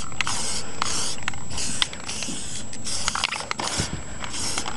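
Aerosol can of tractor and implement spray enamel going in a run of short hissing bursts, about two a second, with a few small clicks between them.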